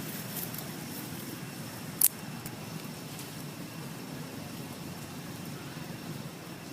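Steady background noise, with one sharp click about two seconds in.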